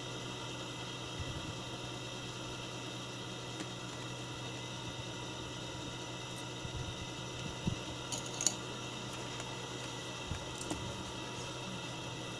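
A steady electrical hum and hiss with a few faint small clicks and taps from handling small parts, clustered around eight seconds in.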